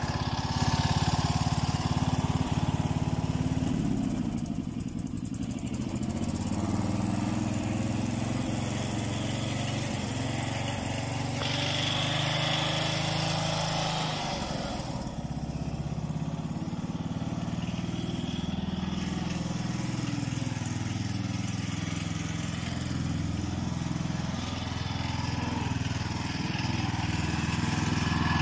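12 hp Briggs & Stratton engine of a ride-on lawn mower running, its speed wavering, dipping and picking up again around four and fifteen seconds in.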